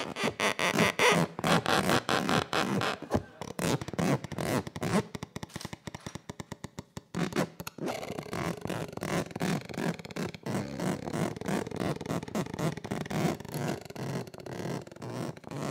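Plastic credit card rubbed against a violin bow close to a microphone, amplified: a rasping stream of rapid, irregular clicks and buzzes that thins out and goes quieter about five to seven seconds in, then picks up again.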